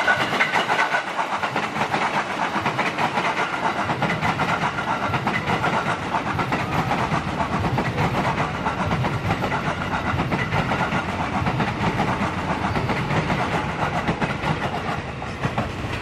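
JR 205-series electric commuter train running past at close range, its steel wheels clattering steadily over the rails; the noise eases slightly toward the end.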